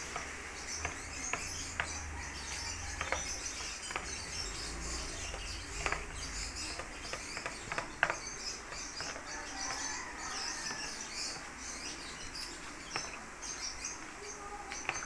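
A spoon stirring a thin batter in a plastic bowl, knocking against the bowl in scattered light clicks. Faint bird chirping runs steadily in the background.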